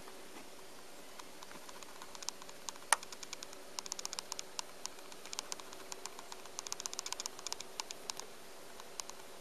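Technics SL-5 linear-tracking turntable worked from its start button: one sharp click about three seconds in, followed by a run of light, irregular clicks and ticks.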